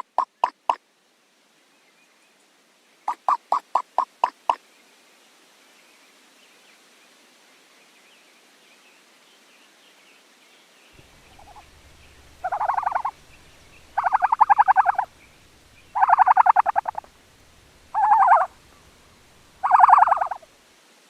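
Ostrich calls: two quick trains of short clipped pulses, then five loud buzzy calls of about a second each, spaced about two seconds apart, over a faint low rumble.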